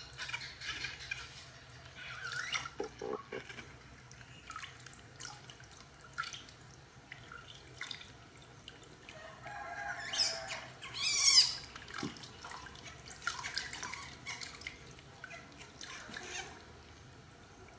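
Water scooped by hand and trickled over a baby monkey's head into a plastic basin: irregular splashing and dripping. About ten seconds in comes a short shrill squeal from the baby monkey, the loudest sound.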